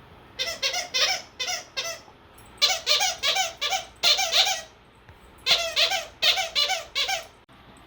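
Belgian Malinois whining in short, high-pitched, wavering squeals, in three quick runs of four or five calls each.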